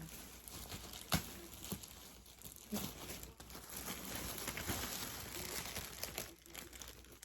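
Packaging crinkling and rustling as a new winter coat is unwrapped, with a sharp click about a second in.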